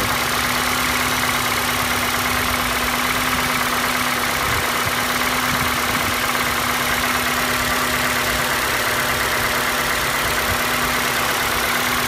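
Healthy Ford 2.5-litre four-cylinder engine idling steadily, with only the slight top-end noise normal for these engines and none of the knocking of a cracked cylinder block.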